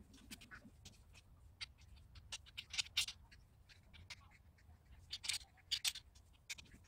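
Faint, irregular light metallic clicks and clinks from steel pipe fittings and clamps being handled and fitted onto a galvanized pipe greenhouse frame, a few grouped together about three seconds in and again near five to six seconds.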